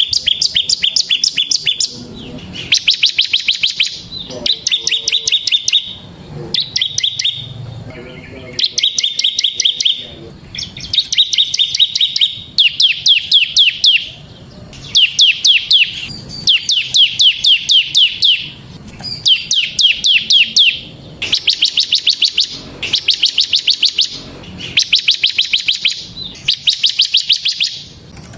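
Bar-winged prinia (ciblek semi) singing its rapid rattling 'ngebren' song: about a dozen fast trills of quickly repeated high notes, each lasting a second or two, with short pauses between them.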